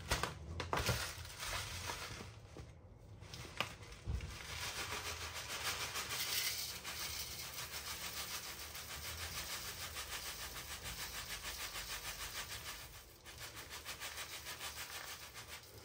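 Rolled oats being shaken out of a plastic bag into a cup, a dry rustling that comes in quick, even pulses, with a short break near the end.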